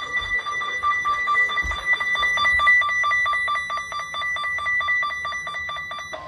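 Emergency Alert System two-tone attention signal: two steady tones sounding together, overlaid from about two seconds in by rapid, evenly spaced clicks, about six a second. Near the end it cuts off and a single lower steady tone begins.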